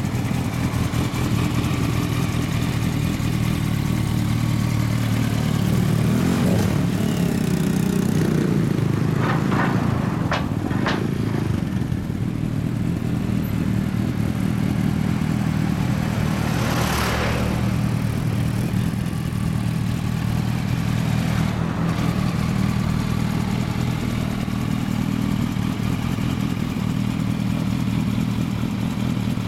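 Several motorcycle engines idling together, among them a 2005 Yamaha YZF-R1's inline-four through a Bright Logic aftermarket exhaust, with a steady low note. One bike revs up briefly about six seconds in, a few sharp clicks follow, and a short rush of noise comes about seventeen seconds in.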